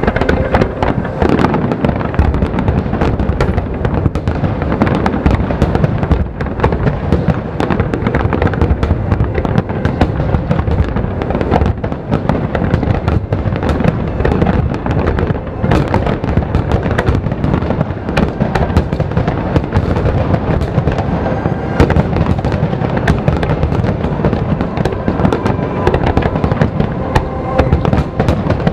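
Aerial fireworks display in full barrage: a dense, continuous stream of shell bursts and crackling with no let-up.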